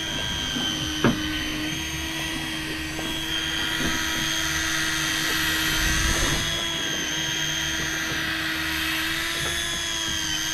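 Electric deep-drop fishing reel's motor whining steadily under heavy load as it strains to winch a big fish up from deep water. One sharp knock about a second in.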